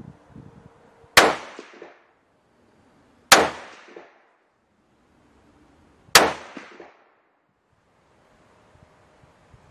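Three rifle shots from a .308 Winchester bolt-action rifle (CZ 557 Varmint), about a second, three and a half seconds and six seconds in. Each is a sharp crack with a short echoing tail.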